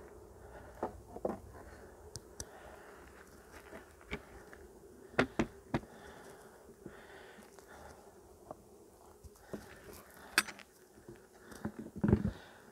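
A mass of honeybees humming steadily, with scattered sharp clicks and knocks from wooden hive parts being handled.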